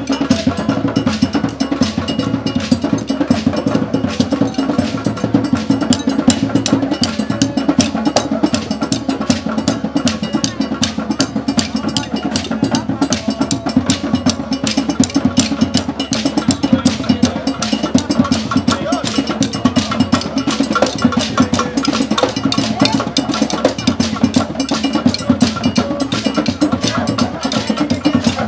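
Traditional Yoruba drum ensemble playing a fast, continuous rhythm on small hand-held drums beaten with curved sticks.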